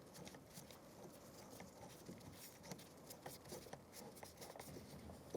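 Faint scratchy clicking of a screwdriver driving the interior door handle's mounting screw into the plastic door trim, with a sharper click near the end.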